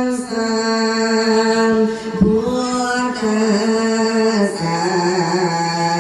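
Thai lae chant for a tham khwan nak (ordinand's blessing): a solo voice sings long held notes that step down in pitch. There is a short knock about two seconds in.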